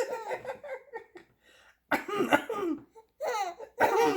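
A man gives two deliberate, imitation coughs, one about two seconds in and one near the end, each answered by a baby girl's laughter.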